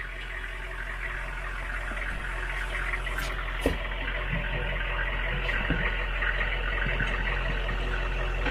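Military vehicle engine idling steadily, with a single sharp knock about three and a half seconds in.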